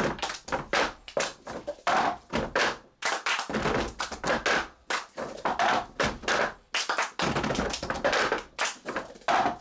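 A quick, uneven run of sharp percussive taps and thunks, several a second, like hands tapping and clapping out a rhythm.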